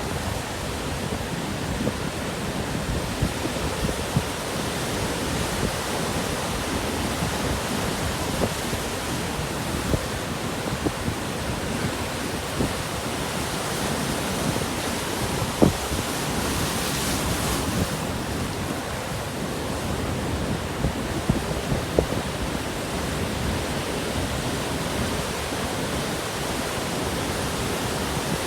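Rough ocean surf from a typhoon swell breaking and washing ashore, with strong onshore wind rushing over the microphone. It is a steady rush of noise, with a hissier swell of breaking water about two-thirds of the way through and a few sharp pops from the wind on the mic.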